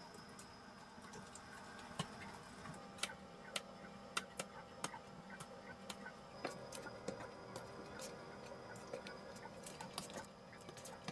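Faint, irregular clicks and light taps of fingers working egg-dipped fish pieces through dry fry-batter mix in a stainless steel bowl and laying them down.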